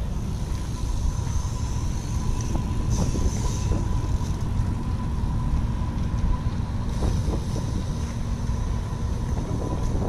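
Wind buffeting the camera's microphone, a steady low rumble.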